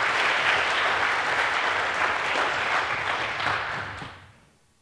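Audience applauding, the clapping dying away about four seconds in.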